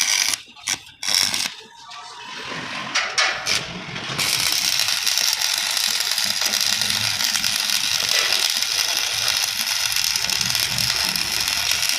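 Stick (arc) welding: the electrode arc's crackling sizzle breaks off and sputters on and off for the first few seconds, then burns steadily from about four seconds in.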